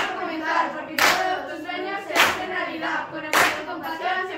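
Children's voices chanting a rap, with hand claps keeping a steady beat about once a second.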